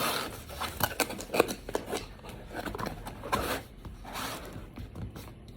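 Paper and packaging handled as a gift box is packed: irregular rustling and scraping with sharp clicks and snips.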